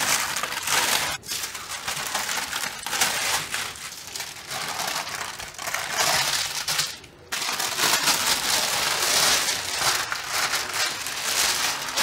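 Thin clear plastic sheet crinkling and rustling as hands press and knead soft cashew dough through it, in uneven strokes with a short break around seven seconds in.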